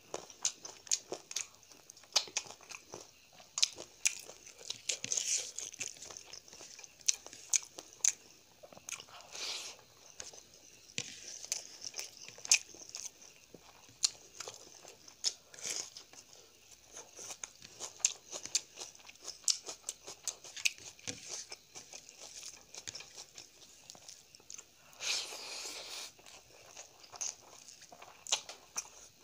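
Close-miked chewing of hand-eaten rice and chicken curry: an irregular stream of wet mouth clicks and smacks, with crunchy bites of raw onion. A longer stretch of chewing noise comes near the end.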